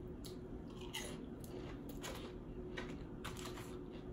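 A person chewing food with the mouth close to the microphone, with faint, irregular wet clicks of the mouth.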